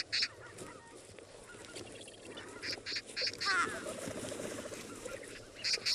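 Birds calling over a flock of vultures feeding on a carcass: short, harsh notes in quick groups of two to four, three times. A brief rising call comes about halfway through, over a low rustle of wings and scuffling.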